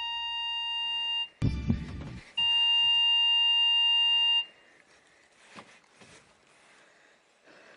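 A long, steady electronic beep tone, held about two seconds. It cuts for a deep thump, then sounds again for about two seconds and stops, followed by faint low-level sounds.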